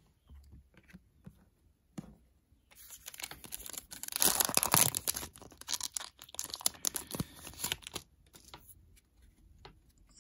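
Foil wrapper of a Panini Prizm trading-card pack being torn open and crinkled. The crackling tearing starts about three seconds in, is loudest around the middle, and dies away a few seconds later.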